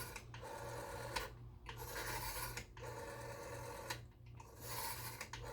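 Rotary telephone dial being wound round and whirring back, one digit after another, about four times in a row with short pauses between.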